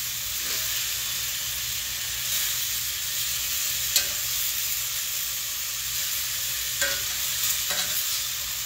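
Pork loin chops sizzling in hot fat in a cast iron skillet, a steady frying hiss. Metal tongs click against the pan once about halfway through and a few more times near the end as the chops are turned onto their sides.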